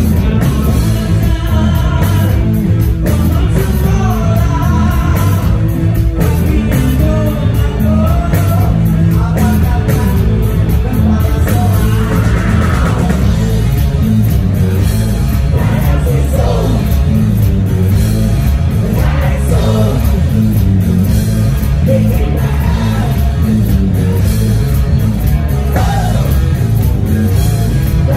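Rock band playing live: electric guitars, bass guitar and a drum kit with a sung lead vocal, loud and steady with a strong bass, heard from the side of the stage.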